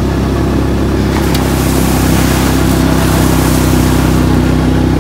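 An engine running at a steady speed under a loud rush of wind or surf noise.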